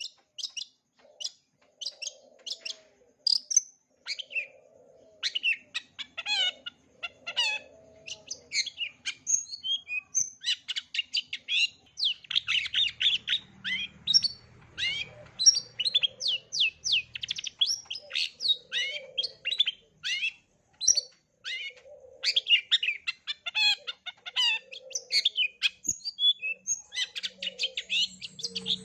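Long-tailed shrike (cendet) singing a fast, continuous song of rapid high chirps and trills, varied throughout and full of mimicked phrases.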